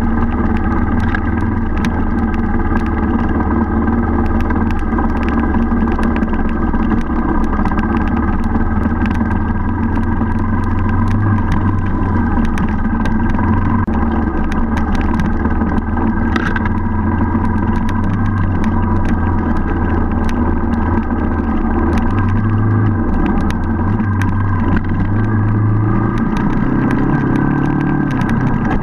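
Enduro motorcycle engine running at steady low speed, heard close up from the bike, with many small ticks and clicks over it. Its pitch shifts up a little about three-quarters of the way through.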